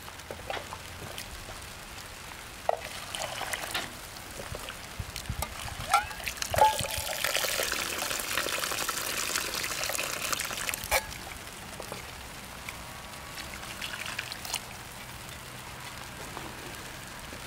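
Hot beef-bone broth poured from a stainless steel ladle into an earthenware ttukbaegi bowl, splashing for about four seconds in the middle. A few metal clinks of the ladle come before and at the end of the pour.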